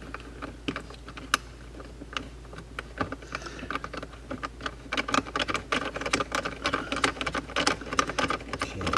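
Plastic steering-column trim on a C5 Corvette being pressed and worked into place by hand: a run of light clicks and taps, sparse at first and coming thick and fast from about five seconds in.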